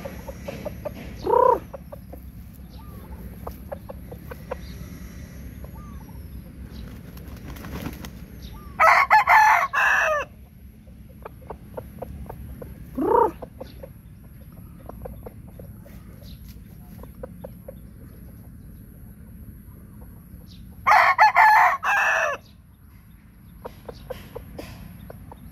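Roosters crowing twice, about twelve seconds apart, each crow lasting about a second and a half, with a couple of short rising clucks in between.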